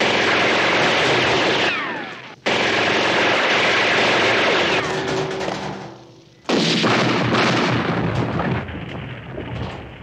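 Film gunfight sound effects: three bursts of heavy rapid handgun fire, each starting suddenly and running two to three seconds. Whines falling in pitch trail off the first two bursts, and separate shots crack through the third.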